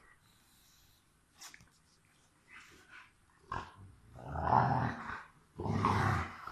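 Rottweilers growling as they play-fight, with two loud, rough growls, one about four seconds in and a second shortly after, and a few fainter short sounds before them.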